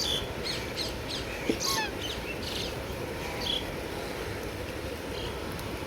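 Birds calling: a run of short, high chirps through the first three seconds or so, thinning out after that, over steady outdoor background noise.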